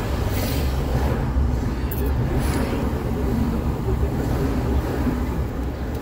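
Steady road noise heard from inside a moving car: a low rumble of engine and tyres, with a few brief whooshes of traffic going by.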